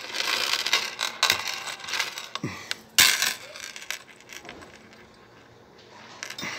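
A small metal chain and hook clinking and jangling against the sewing machine's metal lever as they are hooked on, with one louder sharp metal clack about three seconds in. It grows quieter in the second half.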